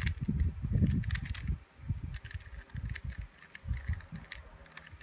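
3x3 Rubik's cube being turned by hand through a PLL algorithm: a quick series of light plastic clicks and clacks as the layers snap round, over low handling thumps.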